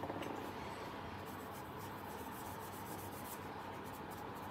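Faint, irregular scratchy rubbing of a folded tissue dabbed over a clear plastic model canopy, over a steady background hum.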